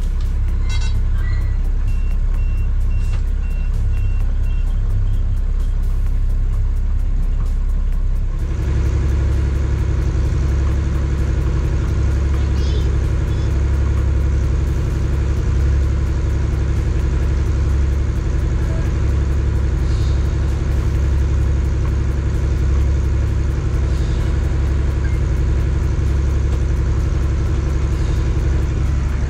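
Boat's marine diesel engine running under way with a steady low drone; about eight seconds in it picks up, its deep rumble and humming note growing stronger and more even. Early on, a quick series of short high electronic beeps sounds over it.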